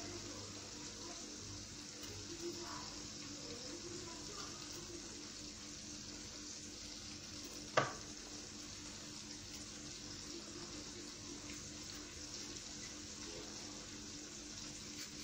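Chicken pieces frying in a pan, a quiet steady sizzle, with a single sharp knife tap on a wooden cutting board about eight seconds in.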